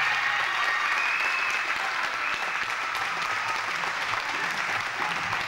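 Arena audience applauding steadily as a team is announced at a medal ceremony.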